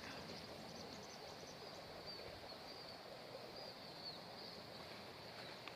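Faint outdoor ambience: a small bird repeatedly giving short, high chirps over a steady background hiss.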